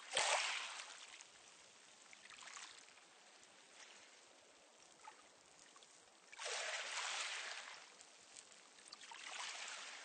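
Small, calm sea waves washing in and out over a pebble beach, a hiss of water running through the stones. Each wash swells and fades over a second or so, the loudest right at the start, a small one a couple of seconds in, then two more about six and a half and nine seconds in.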